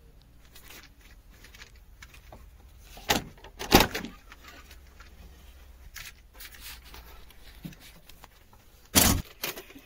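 Three loud knocks or thumps, about three seconds in, just under four seconds in and nine seconds in, with faint clatter and light knocks between them.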